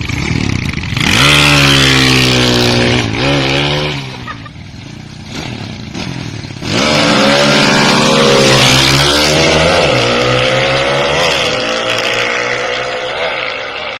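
Drag-race motorcycle engine being revved during tuning. The revs climb about a second in and are held high, drop back to a lower, quieter running speed around four seconds in, then rise sharply again near seven seconds and stay high with a few quick blips.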